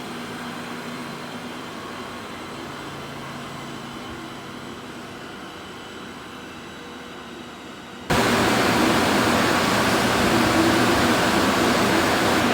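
Steady rushing, machine-like noise with a low hum and no pitch changes, which jumps suddenly much louder about eight seconds in.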